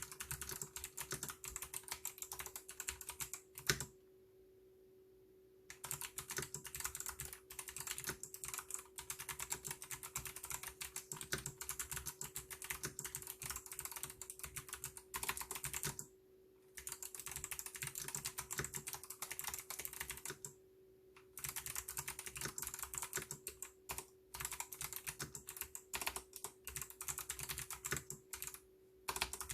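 Mechanical keyboard with Kailh white clicky switches being typed on rapidly and continuously, with a few short pauses, the longest near the start and two shorter ones around the middle. One louder key strike comes just before the first pause.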